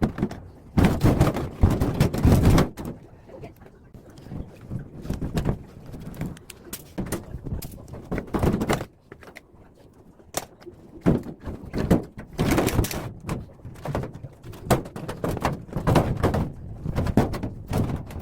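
Irregular knocks, thunks and clatter from a scrapped top-loading washing machine being taken apart by hand. The loudest run of blows comes about a second in, and another burst comes just before a short lull in the middle.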